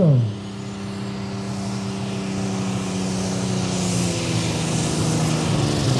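Twin-turbocharged diesel engine of a Super Stock pulling tractor running steadily at the start line, with a hiss that builds over the last couple of seconds. Its pitch dips slightly near the end.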